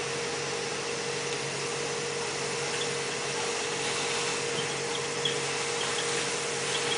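Portable ventilation blower running steadily, a constant airy rush with a hum, blowing through a flexible duct into the septic tank. A few faint ticks of tool work come through in the second half.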